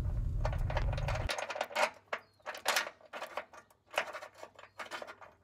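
Irregular metallic clicks and rattles of a fish wire and hitch mounting hardware being worked through the holes of a car's steel frame rail. A low hum underneath cuts off about a second in.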